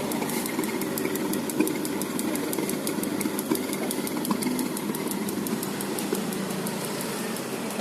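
Gas clothes dryer running: a steady mechanical hum with a fast, even ticking throughout.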